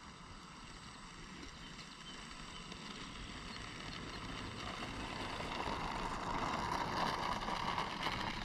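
Electric motor and propeller of an E-flite P-51D Mustang RC plane taxiing on the ground, a steady whir that grows louder as the plane approaches.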